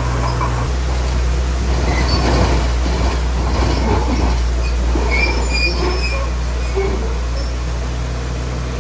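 Shantui DH17C3 crawler bulldozer's diesel engine running steadily, while its steel tracks squeal and squeak as it moves.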